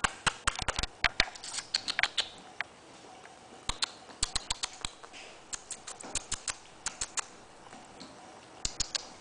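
A young pet's claws clicking and pattering on a hardwood floor as it moves about and plays, in quick clusters of sharp taps.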